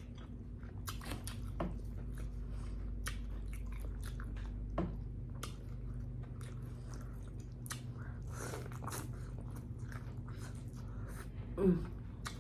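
Close-miked chewing and lip smacking, a scatter of short wet mouth clicks, over a low steady hum.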